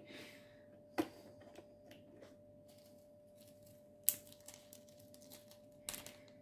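Sharp plastic clicks and taps of small clear diamond painting drill containers and their lids being handled and set down, three louder clicks about 1, 4 and 6 seconds in with lighter ticks between. A short rustle of plastic at the start.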